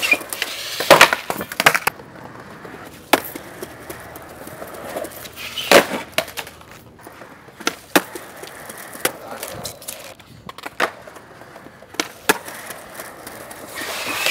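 Skateboard on concrete: about a dozen sharp wooden clacks of the board popping and slapping down, the loudest about a second in and near the middle, with stretches of wheels rolling and scraping along a concrete ledge between them.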